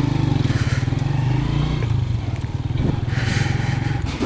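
Motorcycle engine running at low speed, heard from the rider's seat, as the bike pulls away and rides slowly over a rough road, with a brief hiss about three seconds in.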